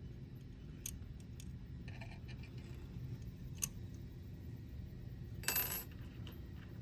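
Light metal clicks and clinks of an Allen key and small screws being handled while fitting a circuit board onto a stepper motor, with a short louder clatter about five and a half seconds in.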